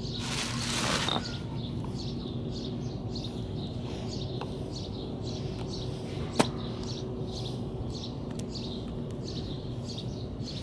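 Birds chirping over and over, with a brief scraping rustle in the first second and a single sharp click about six seconds in.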